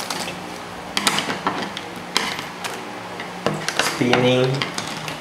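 Plastic toy wrappers crinkling, with sharp clicks of small plastic parts and scissors, as Happy Meal toys are unwrapped. A child's voice is heard briefly about three and a half seconds in.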